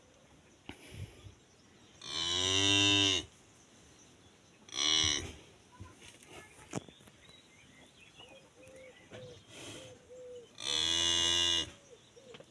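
Cattle mooing: a long moo about two seconds in, a shorter call near five seconds, and another long moo near the end.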